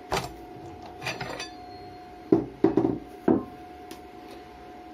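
Metal clinks and knocks from handling tools and parts at a mini lathe: a few light clinks in the first second and a half, then four heavier knocks between about two and a half and three and a half seconds in. A steady faint tone runs underneath.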